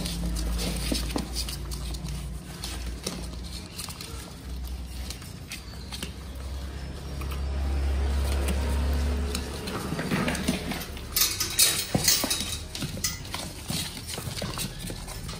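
Newborn puppies suckling and squirming against their mother in a cardboard box: irregular small smacks, clicks and scratches of paws and mouths, with a denser run of sharp rustling on the cardboard about eleven seconds in, over a low rumble.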